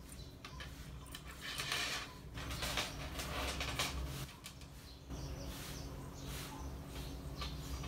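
Yarn pulled through the links of a metal curb chain with a tapestry needle as the chain is stitched to a crochet bag: soft rustling swishes of the yarn drawn taut and light clicks of the links, louder in the first half, over a low steady hum.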